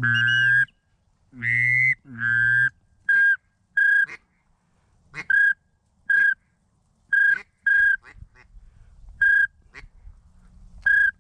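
Hunter's duck calls blown at a circling duck: three drawn-out, honking quacks, then a string of short, high whistled peeps about a second apart.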